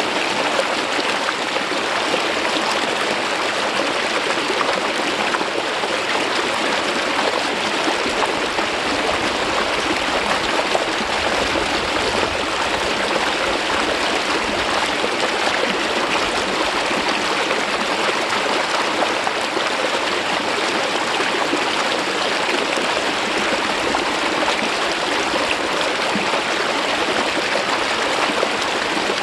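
Mountain stream water flowing smoothly down over a rock face, a steady, even rush of running water.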